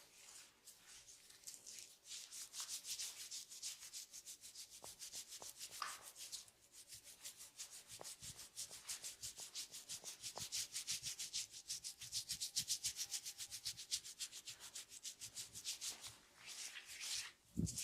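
Hands rubbing and scratching over the scalp and hair in a head massage: a fast, even scratching rhythm of about four or five strokes a second. A soft thump comes near the end.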